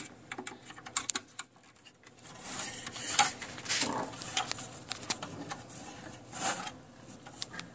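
Hands working cables through an open electronics chassis: scattered small clicks, light scrapes and rustles of cables and connectors against sheet metal and circuit boards.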